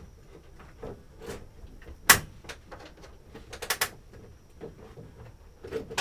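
Hand-operated quick clamp being worked to clamp a folded bench to a wall, giving scattered clicks and knocks. One sharp, loud click comes about two seconds in, a quick run of clicks follows near four seconds, and there is another knock near the end, as the clamp is fumbled into place.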